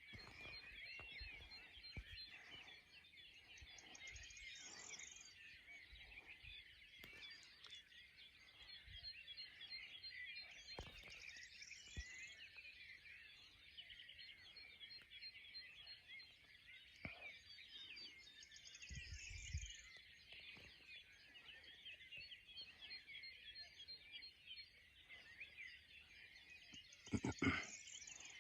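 Many small birds singing at once, a faint continuous tangle of chirps and trills, with a higher chattering song rising out of it every several seconds. A louder, closer call or knock comes about a second before the end.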